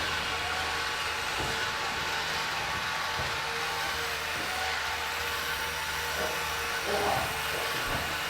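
Small electric motors of radio-controlled model trucks and construction machines running with a steady whine.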